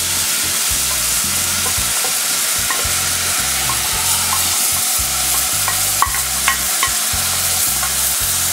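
Hot oil with fried onion and curry powder in a small saucepan sizzling steadily as shredded cabbage is tipped into it. Scattered short ticks and pops sound from a few seconds in, a few louder ones past the middle.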